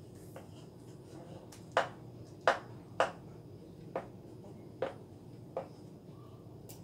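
High-heeled mule sandals clicking and tapping as the feet shift and lift in them on a terrazzo floor: about six sharp taps spaced unevenly, the loudest three close together a couple of seconds in.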